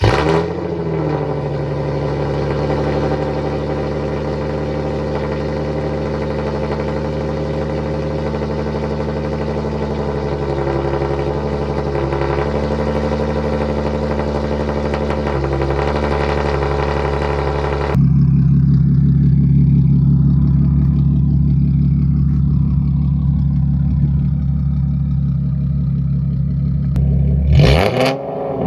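Nissan 370Z's VQ37VHR V6 running through a full straight-pipe exhaust with non-resonated test pipes (no muffler, no resonator), idling steadily with slight wavers in engine speed. About two-thirds of the way through the sound turns duller and deeper, and near the end the engine revs briefly.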